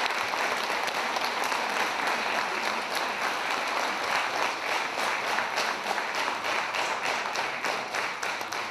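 Audience applauding: a dense, steady clapping that begins to fade near the end.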